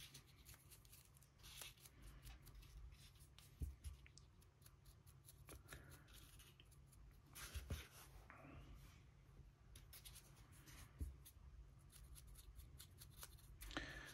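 Faint scratching of a paintbrush working paint onto a plastic miniature, with a few light knocks as figures on their painting bases are picked up and set down on the cutting mat.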